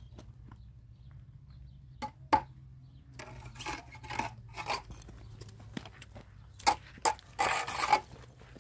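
Cinder blocks and rubble knocking and scraping as they are handled: scattered sharp knocks and clinks, the loudest about two seconds in, and a longer scraping rush near the end, over a low steady rumble.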